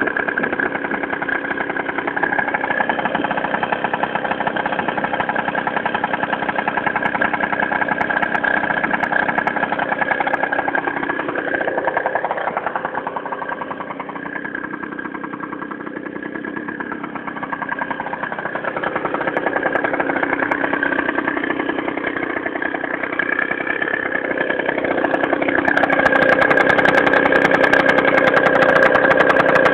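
Piaggio NRG 50cc two-stroke scooter engine with an aftermarket Malossi exhaust, idling steadily. In the middle its speed rises a little and settles back. It is louder near the end.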